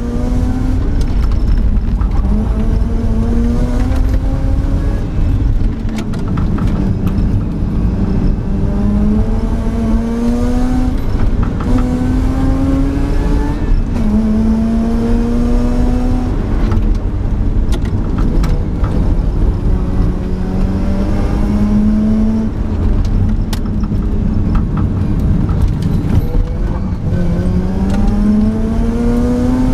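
Mazda RX-8's two-rotor Wankel rotary engine under hard acceleration, heard from inside the cabin: the engine note climbs in pitch again and again as the car pulls through the gears, dropping back at each shift or lift, over steady road and tyre noise.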